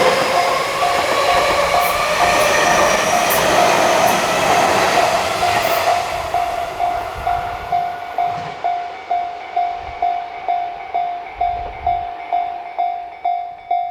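Japanese level-crossing warning bell ringing in a steady rhythm of about three strokes a second. A train rushes past over the first six seconds or so, its noise fading away. After that the bell rings on alone.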